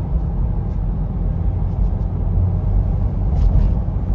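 Steady low rumble of engine and road noise inside the cabin of a moving car, with a couple of faint ticks about three and a half seconds in.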